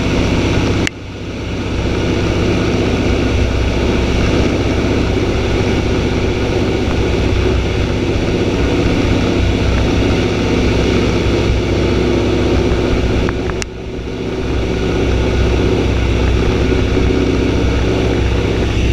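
De Havilland Beaver floatplane's engine and propeller running steadily, heard from inside the cockpit. The sound drops away sharply about a second in and again near the end, then builds back up within a second or so.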